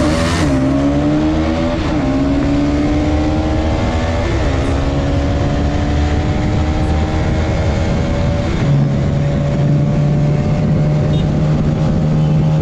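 Bajaj Pulsar NS200 single-cylinder engine accelerating hard through the gears: the pitch climbs, dips at each upshift about half a second, two and four and a half seconds in, then settles into a steady cruise. Wind rushes over the microphone throughout.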